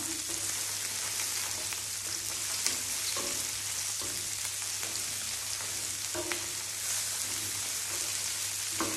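Whole shell-on prawns sizzling in hot oil in a wide paella pan: a steady frying hiss, with a few light clicks of metal tongs as the prawns are moved and turned.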